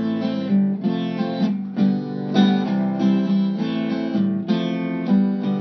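Acoustic guitar strumming chords in a steady rhythm, the instrumental lead-in to a song.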